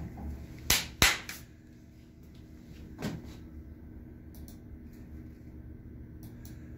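Sharp knocks of a hand handling a rack unit and computer keyboard: two loud ones close together about a second in, a softer one just after, and another about three seconds in, over a steady low equipment hum.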